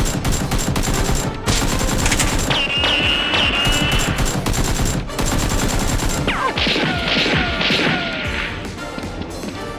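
Rapid, sustained gunfire sound effects, automatic-weapon fire, with music underneath and a few whistling tones, some falling in pitch, partway through.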